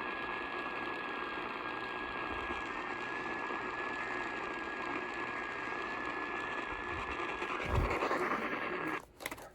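Steady static hiss from a radio receiver, with a faint steady high tone running through it. It cuts off suddenly about nine seconds in.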